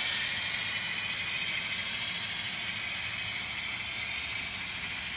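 Model freight train running past on the layout track, a steady rolling rattle of wheels on rails that slowly fades as the last cars go by.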